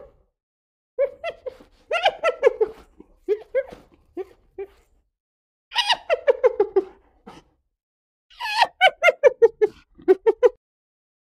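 Spotted hyena giggling: four bouts of rapid, short yelping notes that slide down in pitch, the last and longest near the end.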